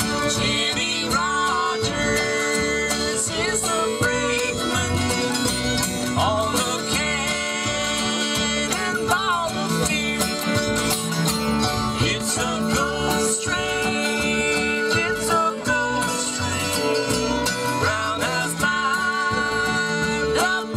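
Live bluegrass band playing an instrumental tune: banjo, acoustic guitar, mandolin, fiddle and upright bass, over a steady bass pulse.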